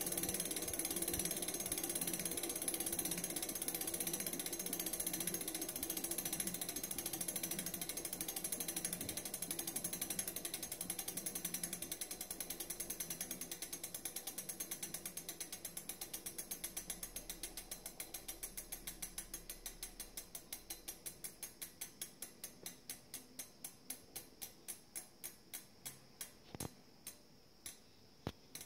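Shimano Deore rear hub freewheeling as the wheel coasts down: the freehub pawls ratchet, starting as a fast, continuous buzz. The ticking then slows into separate clicks spaced further and further apart, and stops just before the end as the wheel comes to rest.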